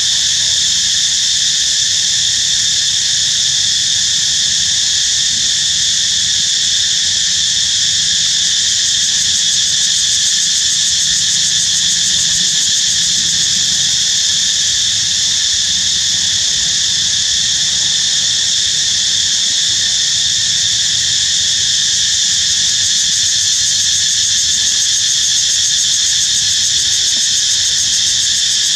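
Insect chorus buzzing loudly and steadily, a high-pitched sound that holds unchanged throughout.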